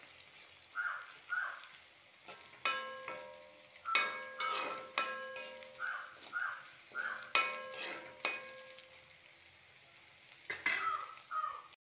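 A metal spoon stirs and scrapes ginger, green chillies and curry leaves frying in oil in a metal kadai. Its strikes on the pan clink and ring again and again, over a light sizzle.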